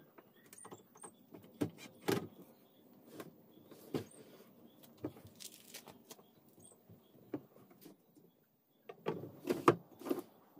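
Scattered knocks and clicks from handling and fitting a sliding wardrobe door panel on its rail, with a short burst of louder knocks near the end.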